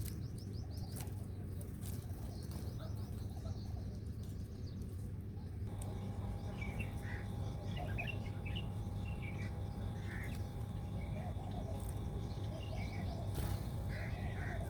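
Small birds chirping in short, scattered calls, with wing flutters, over a steady low rumble. About six seconds in, the background changes and a faint steady hum comes in, and the chirps sit lower.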